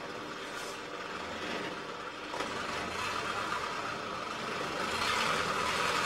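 Long-tail boat engine running as the boat travels along a canal, growing louder toward the end.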